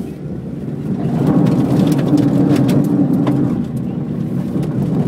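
Car engine revving hard, heard from inside the cabin while the car slides across grass. The noise swells about a second in and eases off near the end, with scattered sharp clicks in between.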